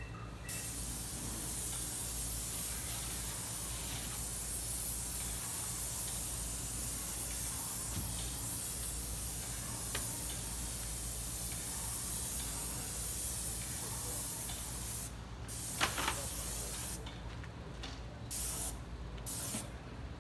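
Airless paint sprayer spraying paint in a steady hiss, which stops and starts several times in the last few seconds, with one sharp click among the pauses. A steady low hum runs underneath.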